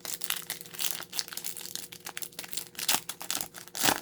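Foil booster pack wrapper of Yu-Gi-Oh cards being crinkled and torn open: a dense run of crackles and snaps, with a louder burst near the end.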